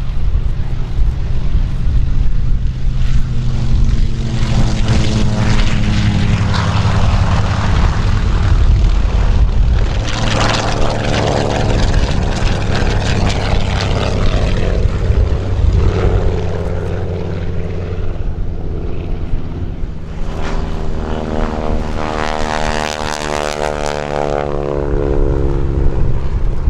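Several WWII warbirds' radial piston engines at takeoff power as the aircraft take off and climb past one after another. The steady deep drone swells three times, with a swishing sweep in the tone each time a plane goes by.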